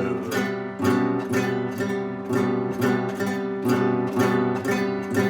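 Acoustic guitar strummed in a steady, even rhythm of chords, with no voice over it.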